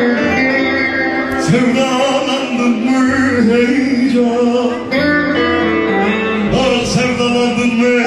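Live Turkish arabesk music: a band with keyboard and violin playing a wavering melody over steady low notes, with a man singing.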